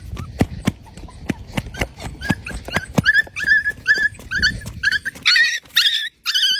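A dog lapping water, a steady train of wet clicks about three or four a second. From about two seconds in, short high whimpers and yips repeat over the lapping, louder near the end.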